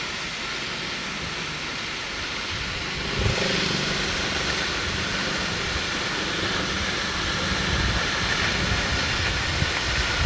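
Steady rushing roar of a waterfall, growing louder about three seconds in.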